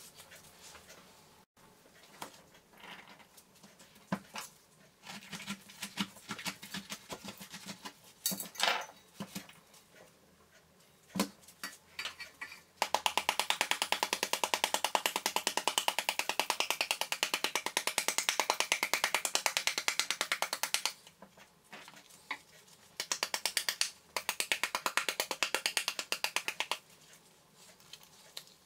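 Pomegranate seeds being picked out by hand and dropping into a stainless steel pan with scattered light clicks. Then a wooden spoon beats fast and evenly on the skin of a halved pomegranate for about eight seconds, knocking the seeds out into the pan, and again more briefly near the end.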